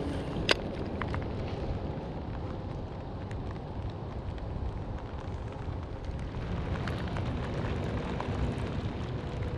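Steady low rumble of wind buffeting the microphone, with a few sharp clicks, the strongest about half a second in.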